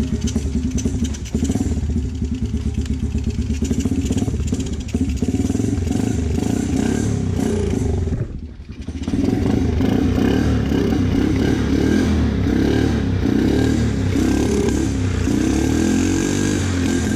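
2008 Suzuki Z90 quad's small single-cylinder four-stroke engine running at idle on its freshly cleaned carburetor. It drops out briefly about eight seconds in, then runs on with its engine speed wavering up and down.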